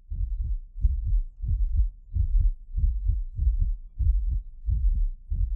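A heartbeat: low lub-dub pairs repeating steadily, about one pair every three-quarters of a second.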